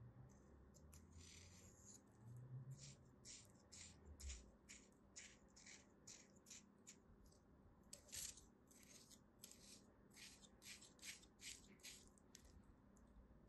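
Scissors blade slicing and scraping through kinetic sand: a run of soft, gritty strokes, about two a second, with a few faint low thuds from handling the sand early on.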